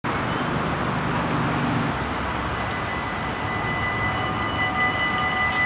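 Dutch automatic level-crossing warning bells starting to ring, their steady high tones joining one after another, with more coming in about four seconds in. This is the warning phase before the half-barriers lower. A steady outdoor rush runs underneath, with a low hum in the first two seconds.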